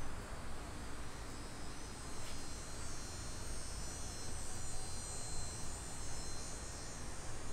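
Steady insect chorus: several thin high tones held without a break, a little stronger from about three seconds in, over a low hum.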